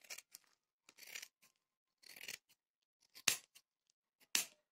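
Scissors cutting through folded saree cloth, trimming the bottom edge straight: about five separate snips roughly a second apart, the last two sharpest.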